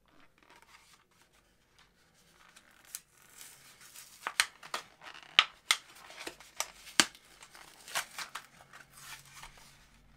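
Hot Wheels blister pack being torn open by hand: its cardboard backing and plastic blister give a run of sharp snaps, rips and crinkles, starting about three seconds in.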